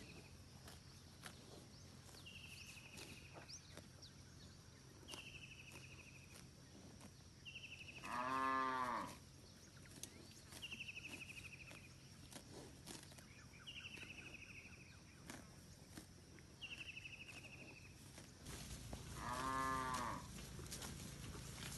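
Village cattle mooing twice, a drawn-out call about eight seconds in and another near the end, each about a second long. Between the moos a bird repeats a short, high, falling trill about every three seconds.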